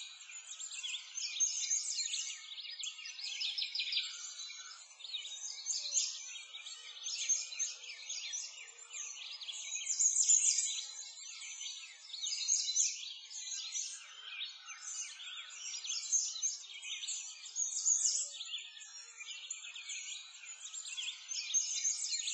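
Dense, unbroken chorus of many small birds chirping and twittering, all high-pitched, swelling and fading every few seconds.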